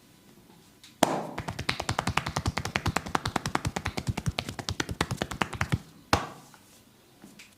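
A massage therapist's hands strike the body in fast percussive tapping, about ten hits a second for nearly five seconds. The tapping ends, and a moment later comes one louder single slap.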